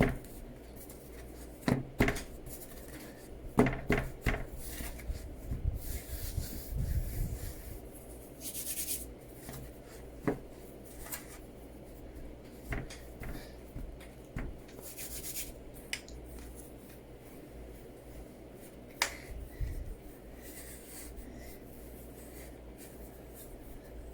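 Hands working homemade play dough on a floured tabletop: soft rubbing with scattered taps and knocks against the table.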